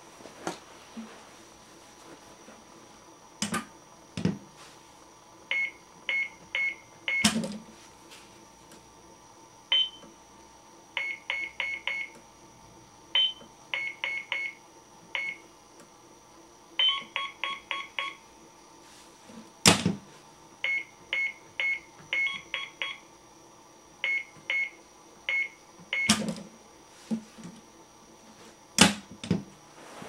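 Short electronic beeps, some single and some in quick runs of three to six, at two or three different pitches, as buttons on top of a black electronics box are pressed. About six sharp clicks fall in between, the loudest about a third of the way in.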